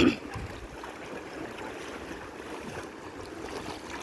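River water running steadily, with one short loud sound right at the start.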